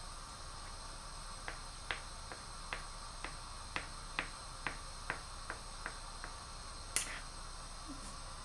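Kitchen knife chopping boiled eggs on a plastic cutting board: a run of sharp taps, about two a second, over a steady hiss. One louder click comes about seven seconds in.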